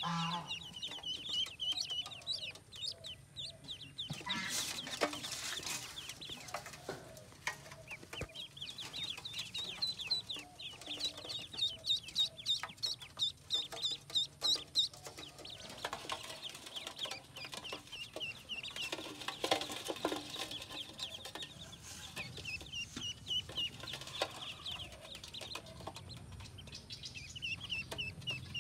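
A brood of ducklings peeping: many high, rapid peeps in overlapping runs.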